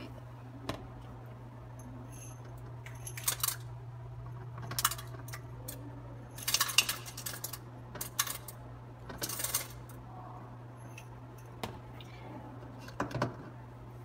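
Coarse dishwasher salt poured through a plastic funnel into the dishwasher's salt reservoir: several short, separate rattling pours of granules, with plastic knocks between them.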